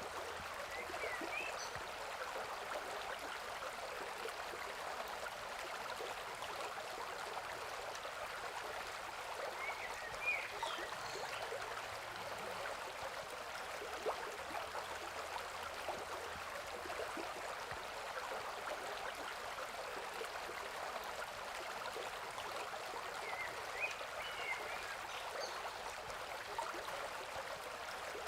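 Small stream running steadily, a continuous trickling and babbling of water, with faint short chirps three times.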